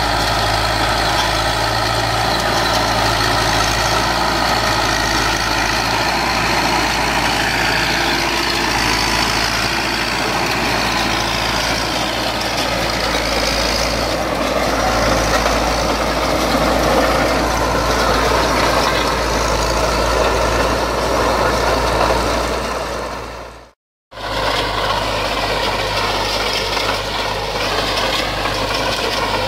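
IMT 577 tractor's diesel engine running steadily under load as it drives a 2.5 m rotary power harrow through the soil. The sound cuts out for a moment about 24 s in, then carries on the same.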